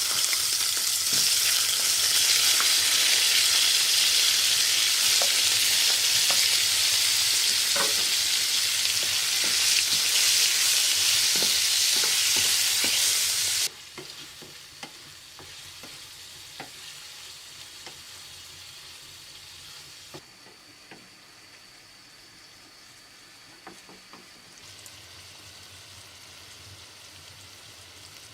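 Food sizzling loudly in hot oil in a pan. It cuts off abruptly about halfway through, leaving only faint crackling and light clicks.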